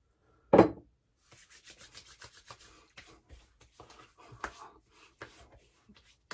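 Hands applying aftershave to a freshly shaved face and neck. There is one loud slap about half a second in, then a long run of quick, quiet rubbing and patting strokes of palms on skin.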